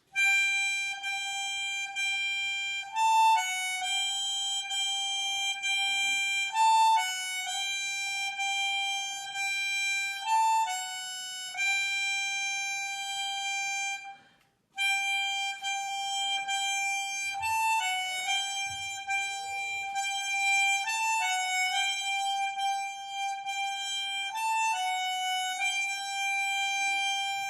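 Background music: a single reedy melody line of long held notes with short quick turns between them. It stops briefly about halfway through and then starts again.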